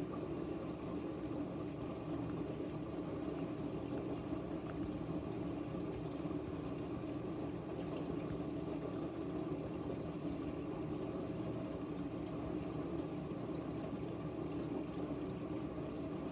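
Steady rushing background noise with a low hum, unchanging throughout, with no music or voice over it.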